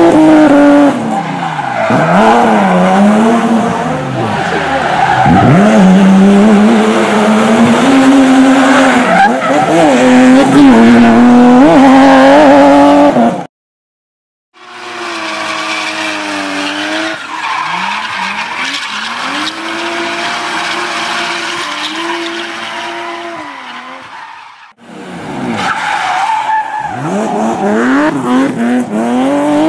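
Car engines revving hard up and down with tyre squeal and skidding as cars drift on a concrete floor. The sound cuts out for about a second around the middle, then an engine holds a steadier high rev before the swooping revs and tyre noise return near the end.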